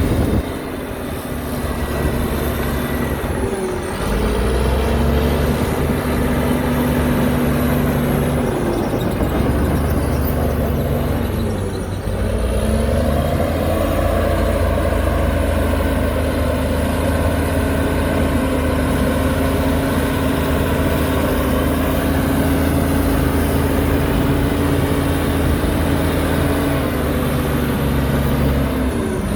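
Heavy diesel engine of earthmoving machinery running hard; its speed drops twice, about four and twelve seconds in, then picks up again.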